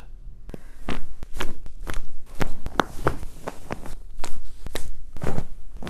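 Joints cracking: many sharp pops in a quick, irregular series, a few a second, the sound of joint cavitation.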